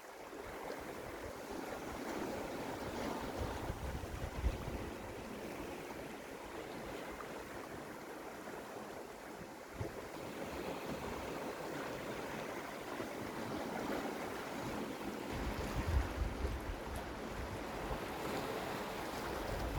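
Sea waves washing over coastal rocks in a steady surf. Low gusts of wind buffet the microphone from about three-quarters of the way through.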